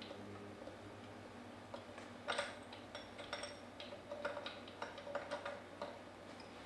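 Scattered light clicks and clinks of metal parts being handled and fitted as a sleeve goes back into a Comet P40 diaphragm pump's housing, with the loudest knock about two seconds in.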